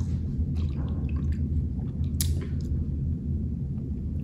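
Sipping and swallowing from a plastic water bottle through its flavor-cartridge cap, with faint wet sounds and a sharp click about two seconds in, over a steady low background hum.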